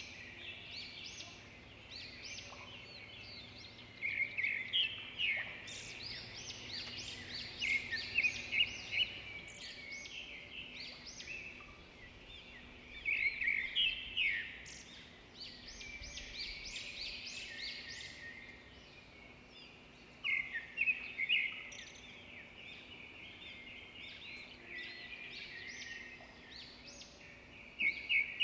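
Small birds chirping and twittering, in bursts of rapid high chirps that come back every few seconds.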